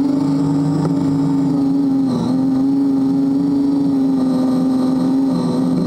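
Motorcycle engine idling steadily at an even pitch, with a brief dip about two seconds in.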